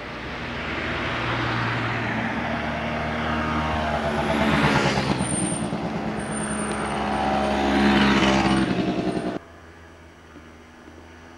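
Small motor scooter engines buzzing as they ride past close by. The sound swells and sweeps away twice, about four and a half and eight seconds in. It cuts off suddenly near the end, leaving only a low hiss.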